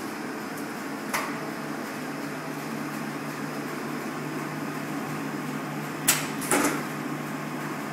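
Komori Lithrone S29 five-colour sheetfed offset printing press with coating unit running: a steady mechanical hum with a constant low tone. A sharp click about a second in and two more close together near the end.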